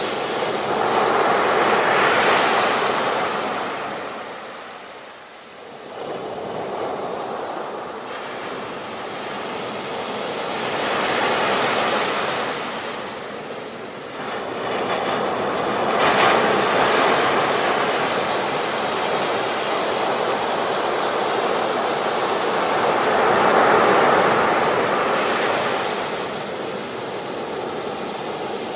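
Sea waves breaking and washing onto a beach. The surf swells and falls back about four times, with a brief lull about five seconds in.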